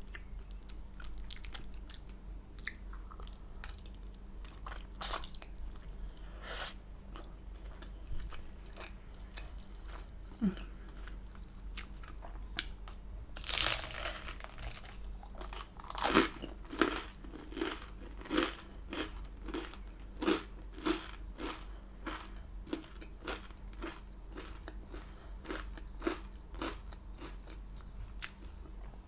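Close-miked chewing and mouth noises of someone eating chicken curry with rice, with a louder noisy burst about halfway through and then steady chewing of about two clicks a second.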